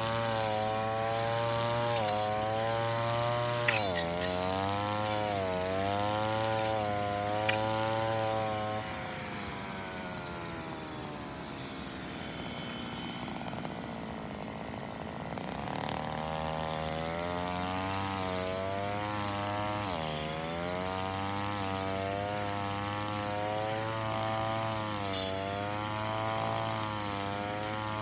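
Brush cutter's small engine running at high speed, its pitch dipping and recovering again and again, easing down to a lower, quieter speed for several seconds midway and then revving back up. A few sharp ticks cut through, the loudest near the end.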